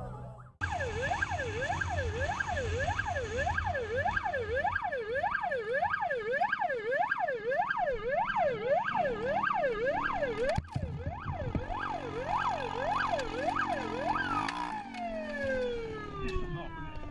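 Emergency vehicle siren in a fast up-and-down wail, about two sweeps a second; near the end the sweeping stops and the pitch falls slowly away.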